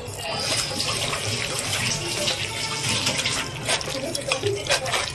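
A hand mixing moong sprouts, pomegranate and grated coconut in a steel bowl: a steady rustling, squelching hiss with a few sharper knocks against the bowl.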